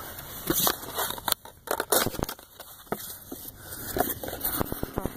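Handling noise from unboxing: packaging rustling and crinkling, with many irregular clicks and knocks as the camera box and its contents are moved about.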